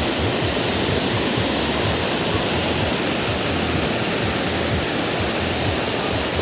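Kravica Waterfall's water pouring over the falls: a steady, even rush of falling water.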